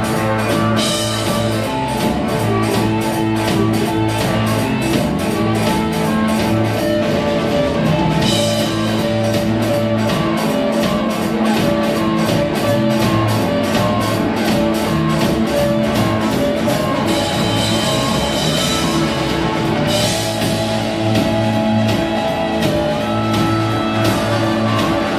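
Live blues-rock band playing an instrumental boogie section, guitar over a drum kit keeping a steady beat.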